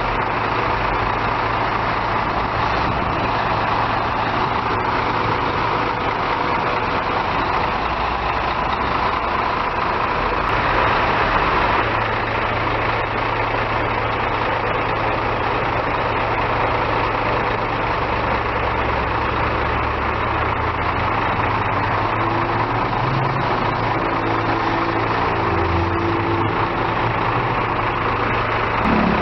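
Scania K360ib coach's engine running steadily with even road or cabin noise over it.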